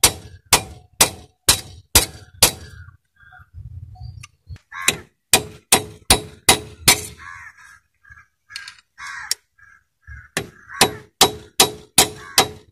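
Hammer blows on a steel chisel driven into an old cast-iron cylinder liner in a diesel engine block: sharp metallic clangs, about two a second, in three runs with short pauses between. The liner is being chipped and cut through so that it can be knocked out.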